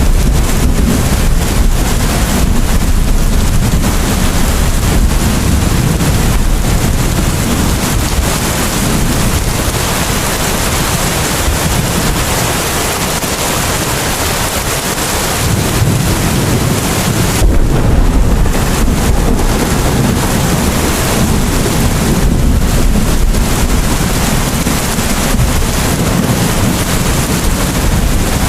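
Heavy rain falling: a dense, steady hiss with a strong low rumble, easing slightly midway and picking up again.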